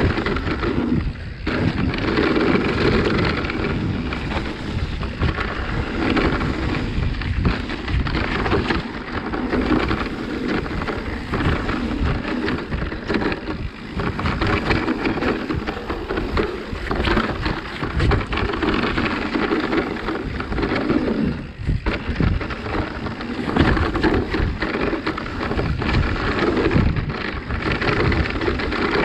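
Mountain bike riding fast down a dirt trail: constant wind buffeting the microphone, tyres rumbling over the dirt, and the bike rattling and knocking over bumps.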